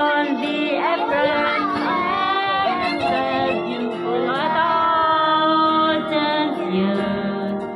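A woman singing a slow song into a handheld microphone, her voice gliding between long held notes, with steady instrumental accompaniment underneath.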